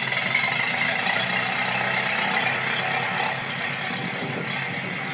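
Tractor engine running steadily, with a steady hiss over it.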